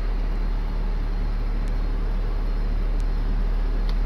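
Deep, steady rumble of a vehicle on the move, heard from inside the cab; it cuts off suddenly at the end.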